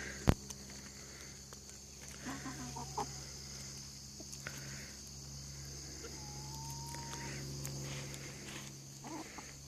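Backyard hens clucking softly, with one drawn-out call about six seconds in, over a steady high trilling of insects. A single sharp knock just after the start.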